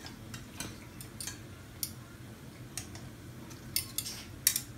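Metal kitchen tongs clicking and tapping against an enamel pan while picking up marinated chicken pieces: light, irregular clicks, the loudest few near the end.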